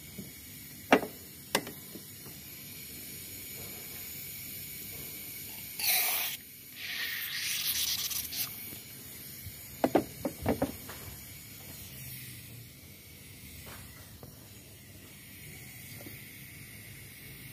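Aerosol carbon cleaner hissing as it is sprayed through a car fuel injector to flush its nozzle holes. There is a short loud burst about six seconds in, then a longer hiss lasting about two seconds. A few sharp clicks come before it and a quick cluster of clicks comes after.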